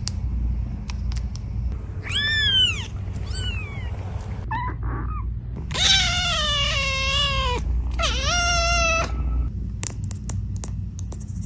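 Kitten meowing repeatedly in high, wavering calls: two short meows a couple of seconds in, a faint one near five seconds, a long drawn-out meow about six seconds in and a shorter one around eight seconds.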